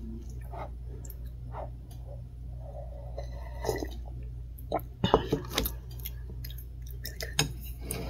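Someone sipping hot ramen broth from a paper cup: soft slurps and swallows, with small clicks and taps, a few sharp ones about five seconds in, over a steady low hum.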